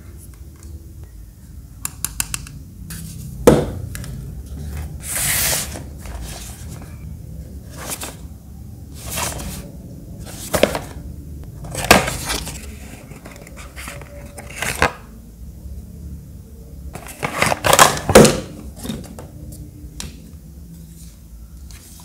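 Hands handling small plastic fans and a paperboard box: scattered clicks, knocks and scrapes, with a few longer rustling slides as the box is slid open and the fan taken out.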